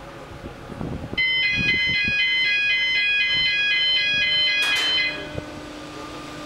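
A chairlift's electronic start-up warning: a quick melody of high beeps plays for about three and a half seconds, then the lift's drive sets in with a low, steady hum as the lift starts moving again.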